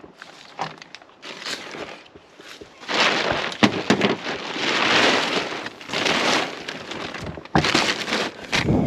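Plastic tarp rustling and crinkling in irregular bursts as it is handled and brushed, with a few sharp clicks, louder from about three seconds in.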